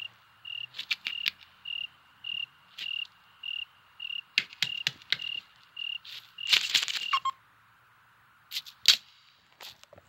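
Cricket chirping from a film's sound-effects track, a short high chirp about twice a second, mixed with scattered clicks and a louder rustling burst. The chirping stops about two-thirds of the way through, and two sharp cracks follow near the end.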